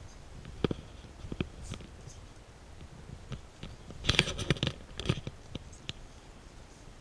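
Footsteps and scuffs: a few separate steps, then a quick run of louder steps and scrapes about four seconds in.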